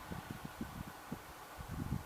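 Wind buffeting the microphone outdoors: faint, irregular low rumbles and gusts over a quiet background.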